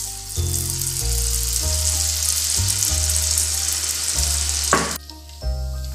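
Batter-coated achappam (rose cookie) mould sizzling hard in hot oil, a dense frying hiss that stops suddenly near the end.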